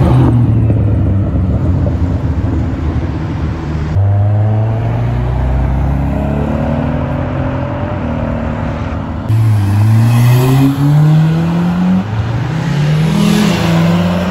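Car engines and exhausts pulling away one after another, a new car every few seconds, their pitch climbing as they accelerate. The last one rises and then drops off near the end.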